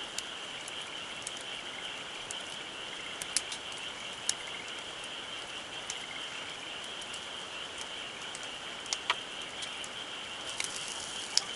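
Campfire crackling with scattered sharp pops, over a steady high chirring of insects.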